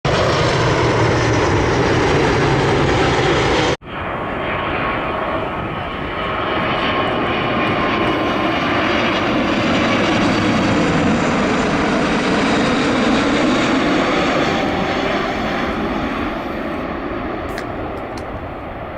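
Jet airliner passing close by, its engines loud and steady. About four seconds in the sound cuts abruptly to another airliner's engines, whose pitch slowly shifts as it passes and fades near the end.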